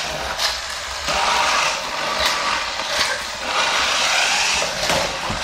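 Radio-controlled toy Porsche Spyder's small electric motor and plastic gears whirring as it drives across a hardwood floor, with a few sharp knocks.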